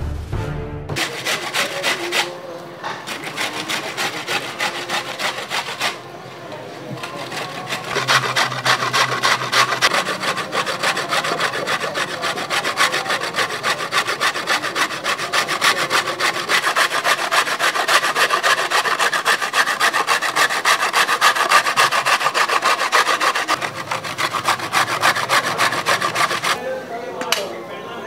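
A hand-held vegetable peeler scraping the skin off a cucumber in rapid, even strokes, like a rasp.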